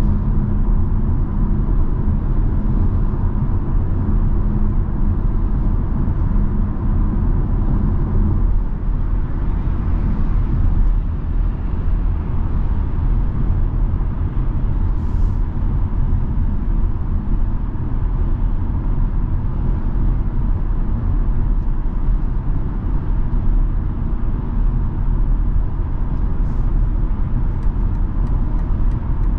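Inside the cabin of a BMW X3 M40i at freeway speed: steady road and tyre rumble with its 3.0-litre turbocharged inline-six running underneath. The engine's tone fades about eight seconds in, leaving mostly road noise, and a faint regular ticking starts near the end.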